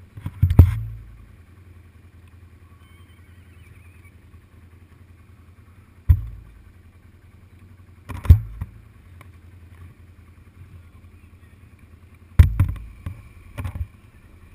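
Loud sharp clicks and knocks from the camera rig right at the microphone, coming in about five clusters a few seconds apart, over a low steady rumble.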